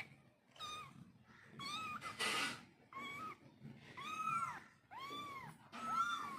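Cat meowing repeatedly: about six short meows, each rising then falling in pitch, with a rougher, harsher cry about two seconds in.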